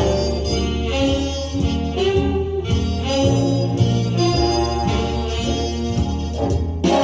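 Instrumental big band jazz with horns, played back over a hi-fi stereo system's speakers.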